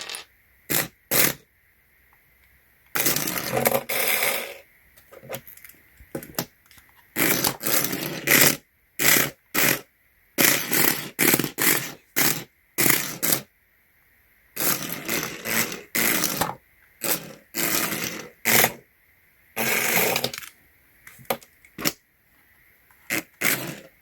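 Tiny electric motor of a 1/64-scale Hot Wheels RC car whirring in repeated short bursts, from a split second to about a second and a half each, as the car is driven in spurts with gaps between.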